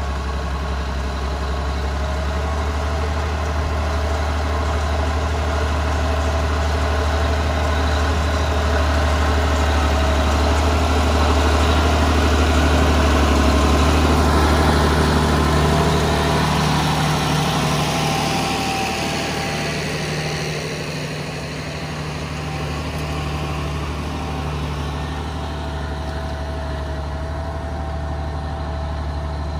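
Massey Ferguson 3080 tractor's diesel engine working under load as it pulls a plough through the soil. It grows louder as the tractor passes close by around the middle, then drops about two-thirds of the way through to a lower, steadier running note.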